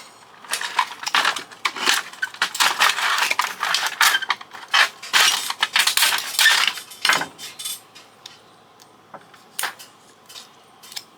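Small metal parts from a dismantled fax machine clattering and clinking as they are handled and dropped, dense for about the first seven seconds, then only a few scattered clicks.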